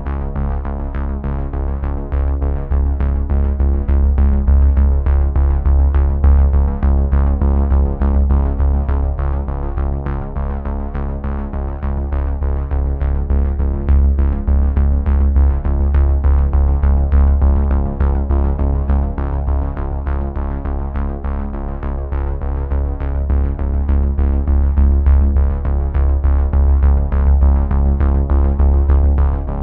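Background music with a steady beat over sustained held chords.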